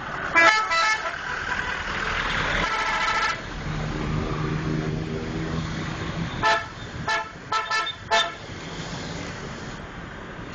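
Indonesian bus 'telolet' multi-tone air horn playing its chord. Two quick toots near the start, a longer held chord about two to three seconds in, then a rapid run of about five short toots around seven to eight seconds in.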